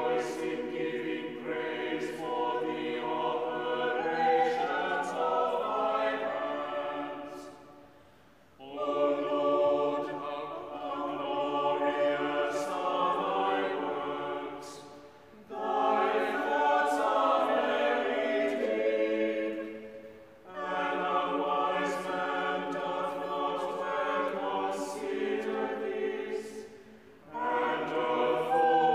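Small mixed choir singing in a cathedral, in long sustained phrases broken by four short breaks for breath.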